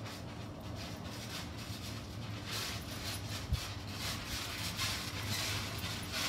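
Two children bouncing and scuffling on a trampoline: repeated soft scuffs and thuds from the mat and springs, with one sharp thump about three and a half seconds in.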